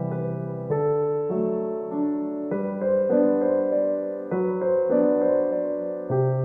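Background music: soft piano chords changing about once a second, with a sustained, electric-piano-like tone.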